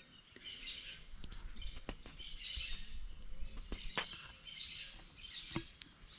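Birds chirping, with short high calls repeating throughout, and a few faint sharp clicks among them.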